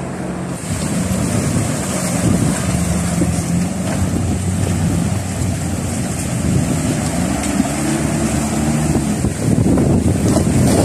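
Off-road SUV engines running and revving as the 4x4s crawl over river rocks and through shallow water, with the engine pitch rising about two-thirds of the way through. Rushing stream water and wind noise on the microphone run underneath.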